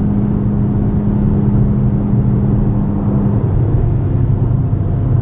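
Toyota GR Yaris's 1.6-litre turbocharged three-cylinder engine with an Aulitzky aftermarket exhaust, heard inside the cabin at speed as a steady drone. Its strongest tone drops away about three and a half seconds in, while the lower drone carries on.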